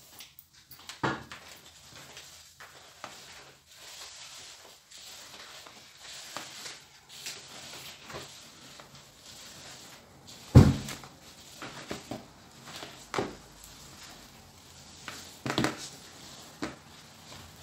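Spoons scraping and stirring in mixing bowls as shredded coconut is folded into a whipped egg-white and sugar mixture, with light rustling throughout. Several short knocks break in, the loudest about ten seconds in.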